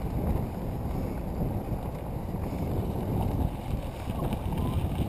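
Wind buffeting the microphone of a bicycle being ridden at speed: a steady low rumble that rises and falls.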